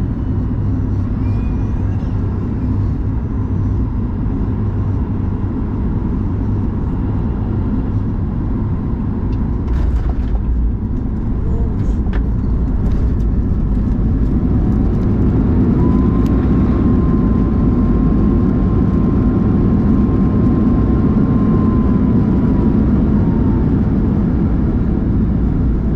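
Cabin noise of a Boeing 737-9 MAX: a steady low rumble of its CFM LEAP-1B engines and airflow. The rumble grows louder about halfway through. An engine whine then rises in, holds steady, and falls away near the end.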